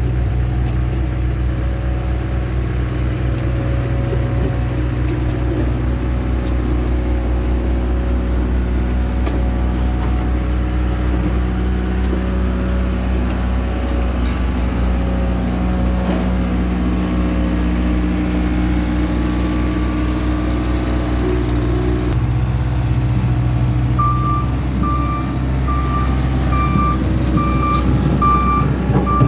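Diesel engines of skid steer loaders running at work, engine speed shifting now and then. About 24 seconds in, a backup alarm starts a steady beeping, a little more than one beep a second.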